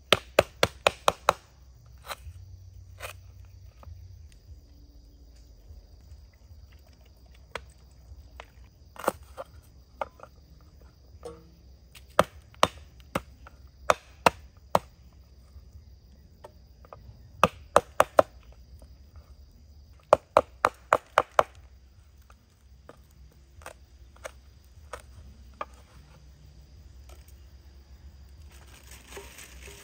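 Large knife chopping lemongrass and other aromatics on a wooden cutting board: quick runs of five or six sharp knocks with pauses between. A faint steady high-pitched drone runs underneath.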